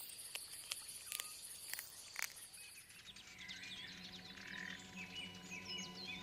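A few sharp clicks or snaps over the first two seconds. Then, from about three seconds in, quick high bird chirps over a low steady hum.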